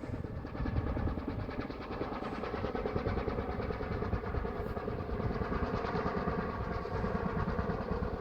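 A helicopter flying over with a steady, rapid beat of its rotor, growing slightly louder toward the end. It looks to be a firefighting helicopter carrying water to a wildfire.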